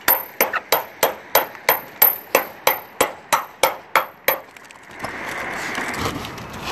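Hammer blows on the sheet metal of a rooftop HVAC curb, a fast even series of sharp ringing strikes, about three a second, that stops about four seconds in. After about five seconds a steady rushing noise takes over.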